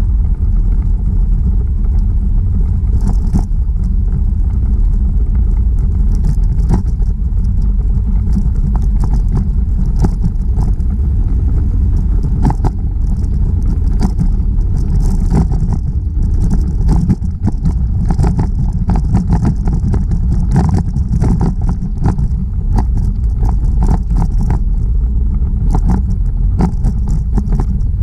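Wind buffeting the microphone of a camera carried on a moving bicycle, a steady heavy rumble, with irregular rattling clicks as the bike rolls over the paved path.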